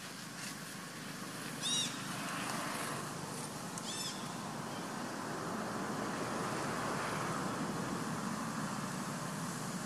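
Steady outdoor background noise, with two short high-pitched chirps about two seconds apart.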